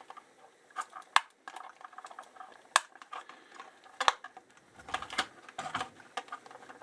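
Small metal clicks and clinks of RC body clips being worked off the body posts of an HBX Rampage 1/18 RC truck, with three sharp louder clicks about a second and a half apart among lighter handling rattles.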